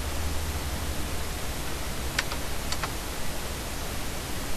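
Steady microphone hiss with a low hum, and two quick pairs of computer mouse clicks a little over two seconds in.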